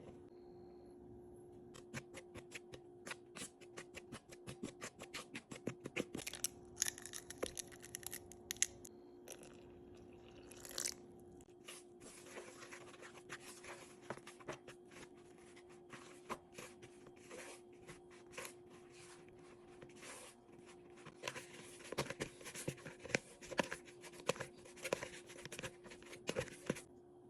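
Rapid crackling and crinkling handling noises in clusters, over a steady low hum.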